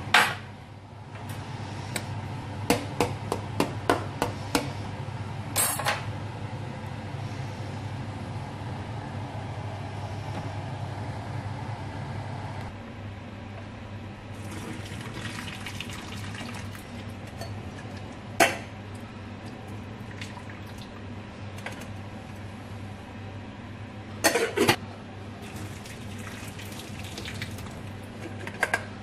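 Saucepan of boiled vegetables being drained: hot cooking water pours from under the glass lid into a stainless steel sink, with several sharp clanks of the metal pot and lid. A low steady hum runs under the first half and then stops.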